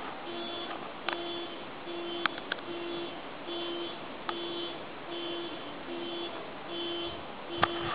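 An electronic beeper sounding at an even pace, about five beeps every four seconds, with a few sharp clicks scattered through.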